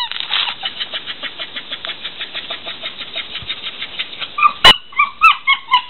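A rubber squeaky ball toy squeaked five or six times in quick succession near the end as a dog mouths it, just after a single sharp knock. Under it, a steady rapid pulsing of about ten strokes a second.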